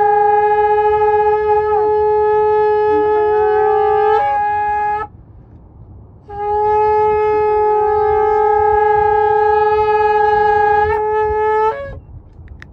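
Two shofars, a long spiral horn and a shorter one, blown together in two long held blasts. The first ends about five seconds in; after a short breath the second sounds for about five and a half seconds and ends with a quick upward flip in pitch.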